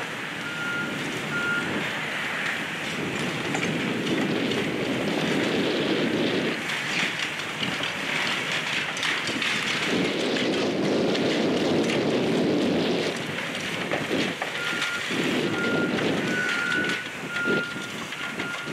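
Demolition excavators with grapple attachments tearing into a brick building: diesel engines running under load, with brick, wood and debris crunching and clattering as the grapples rip and drop material. A backup alarm beeps a couple of times about half a second in, then beeps repeatedly near the end.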